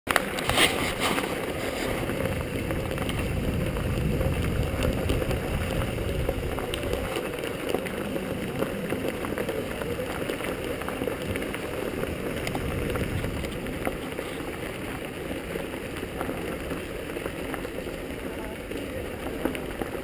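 Continuous rumble and rattle from a camera mounted on a moving Segway rolling along a dirt trail, with wind buffeting the microphone. A few sharp knocks in the first second.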